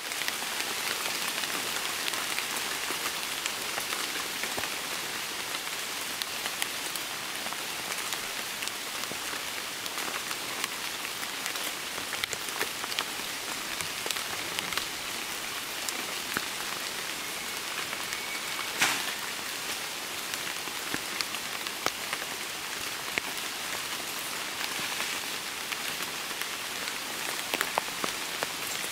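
A steady rain shower falling on rainforest foliage, with many single drops ticking through the hiss and one louder drip or knock about two-thirds of the way through.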